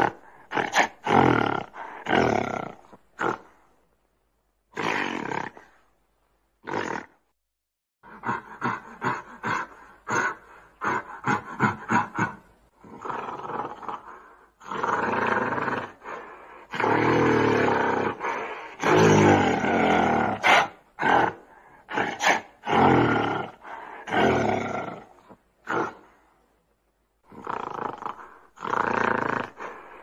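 Deep animal roars and growls, called again and again. Some come short and quick in a run, others last a second or two, and a few clean breaks of silence cut between them.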